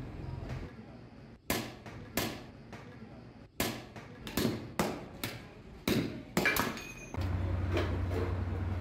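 Hand hammer striking metal on a steel truck brake shoe: about ten sharp, ringing blows at an uneven pace. From about seven seconds in, a steady low hum takes over.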